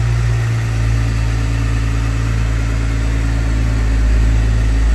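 Jeep Wrangler's 3.6-liter Pentastar V6 idling steadily and smoothly, heard close over the open engine bay.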